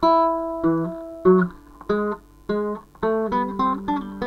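Solo guitar passage: single plucked notes and short chords, each struck sharply and ringing away, about ten in a row with the last few coming faster, ending on a chord left to ring.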